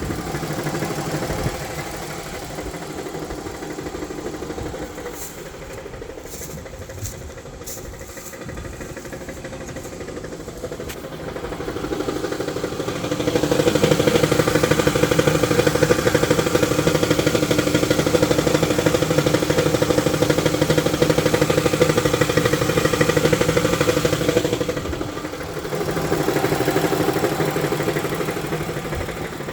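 2018 ProMaster 1500's 3.6-litre V6 engine running, with a noise at idle that the owner says goes away above 1000 rpm. The engine sound grows louder and steadier for about ten seconds midway, drops back, then rises again briefly near the end.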